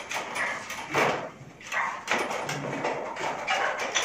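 Electrical wire being pulled by hand through a conduit in a concrete ceiling: uneven scraping and rustling in bursts.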